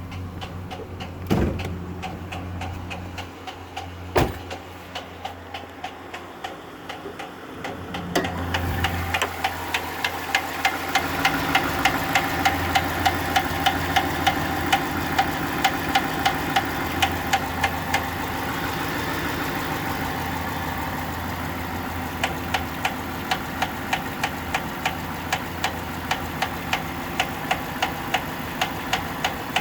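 An engine running with a regular knock, about two sharp knocks a second. It gets louder about eight seconds in, and the knocking fades for a few seconds past the middle before coming back.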